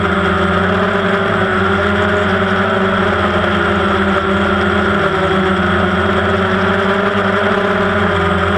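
Quadcopter drone's motors and propellers whirring steadily, heard from the camera on board, the pitch wavering slightly as it flies.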